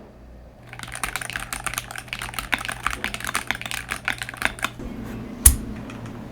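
Rapid typing on a Royal Kludge RK-M75 HE magnetic-switch mechanical keyboard: many keystrokes in quick succession for about four seconds, then one louder single click near the end.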